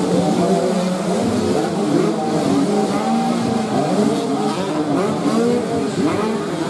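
Several motocross bike engines revving at once, their pitches rising and falling over one another.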